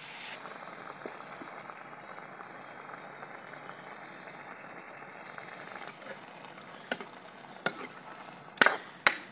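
Grated bottle gourd and sugar sizzling in ghee in a kadhai as the water the sugar has released cooks off. A steel ladle stirs through it and knocks sharply against the pan about four times near the end.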